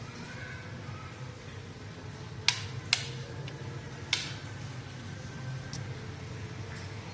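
Plastic wall switches on a modular switch-and-socket plate being flipped: two sharp clicks in quick succession about a third of the way in, a third a little past halfway, and a fainter one later, over a steady low hum.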